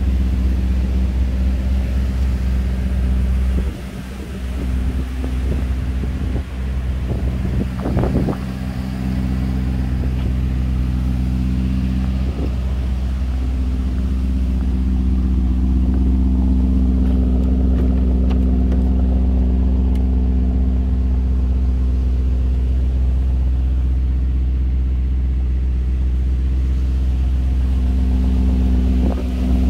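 Lamborghini Urus's twin-turbo 4.0-litre V8 idling steadily, with a few short knocks about eight seconds in.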